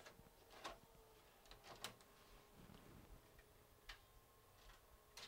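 Faint, scattered clicks of a VHS cassette being pushed into a Panasonic AG-7650 S-VHS deck and the deck's loading mechanism taking it in, with a faint steady hum from about two seconds in.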